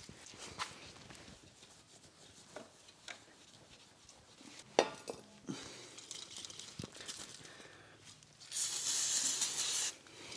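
Faint rubbing and small clicks of a rag wiping down a motorcycle engine case, then a steady hiss of a spray can lasting about a second and a half near the end, as the case is degreased.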